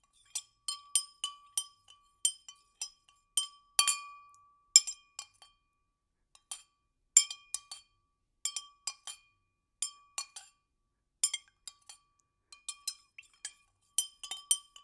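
A spoon stirring liquid in a glass, its clinks against the glass ringing out in irregular runs of one to three a second, with a short pause partway through.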